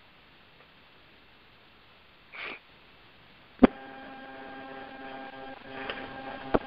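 Conference-call phone line: a short breathy hiss, then a sharp click about three and a half seconds in, after which a steady electrical hum with several tones comes onto the line, with a couple more clicks.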